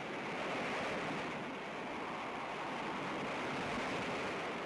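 Steady rushing noise of wind and heavy seas, a storm.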